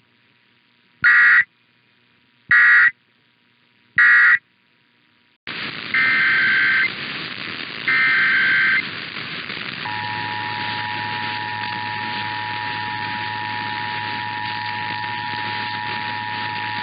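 Emergency Alert System signalling: three short end-of-message data bursts, then a hiss of radio static starts and two longer header data bursts sound. About ten seconds in the steady two-tone EAS attention signal begins and holds.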